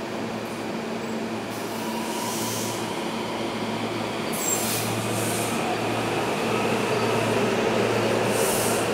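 SEPTA Silverliner V electric multiple-unit train pulling out of a station, growing louder as it gathers speed. There is a steady low electrical hum, a faint whine that climbs slightly in pitch, and the rumble of wheels on rails, broken by a few brief hisses.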